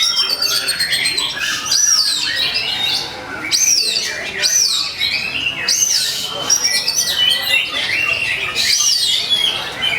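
Oriental magpie-robin (kacer) singing loudly and without pause: a fast, varied run of clear whistles, rising and falling slurs and short notes, the heated full song kept by bird keepers as a 'fighting' song.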